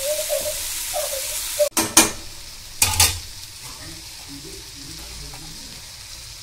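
Vegetables frying in a metal kadai, with a steady sizzle. A spatula scrapes and knocks against the pan in a few loud strokes about two to three seconds in, as the biryani masala is stirred through.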